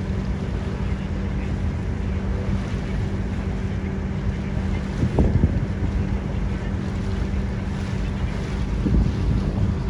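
Ferry's engine running with a steady low drone, wind rushing over the microphone, and a couple of louder low swells about halfway through and again near the end.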